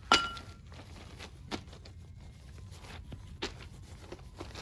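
Handling sounds from unpacking: a sharp ringing clink of a hard dish or object just after the start, then scattered light taps and rustles.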